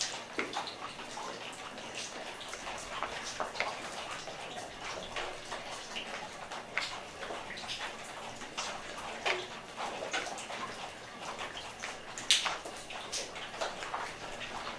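Footsteps crunching and scuffing over a debris-strewn floor: irregular crackles and clicks, with one sharper crack about twelve seconds in.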